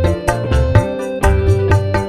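Dangdut koplo music played on a Korg Pa600 arranger keyboard: a fast hand-drum kendang beat with deep bass hits under sustained keyboard notes.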